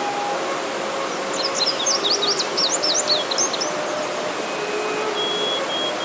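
Mountain stream rushing steadily over rocks, with a bird giving a quick run of high, falling chirps from about one to three and a half seconds in. A soft bamboo flute (suling) plays long held notes underneath.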